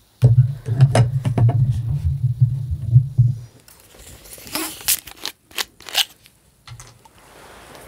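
Eating a crisp Fuji apple close to the microphone: wet chewing and mouth noises, then several sharp crunching bites midway through.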